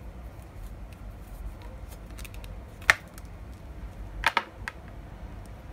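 Pliers clamping a stiff plastic-coated wire clothes hanger while trying to cut it: one sharp click about three seconds in, then a quick pair of clicks a little over a second later and a fainter one just after, over a low steady rumble.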